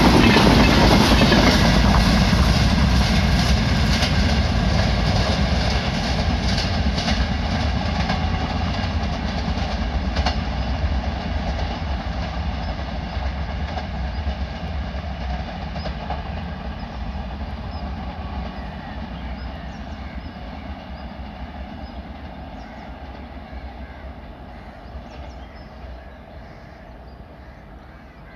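The last LHB coaches of an Indian Railways express train pass and draw away down the track. The clickety-clack of wheels over rail joints and a steady ringing tone from the rails fade gradually into the distance.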